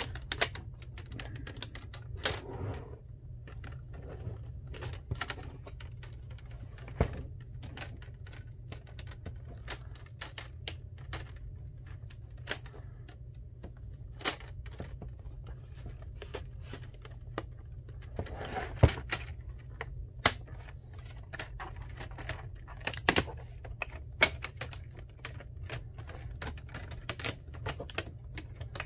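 Irregular sharp clicks and taps of plastic as a broken laptop LCD panel, held by adhesive, is pried at by hand, over a steady low hum.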